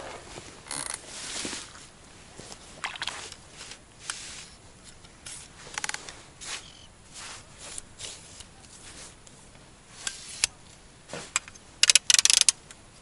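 Handling sounds from setting up a 5.4 m herabuna fishing rod: scattered scrapes, rustles and sharp clicks, ending in a loud burst of rapid clicks about a second before the end.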